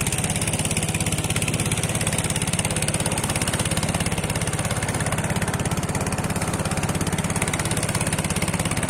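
A small fishing boat's motor running steadily at an even speed, with a fast regular beat.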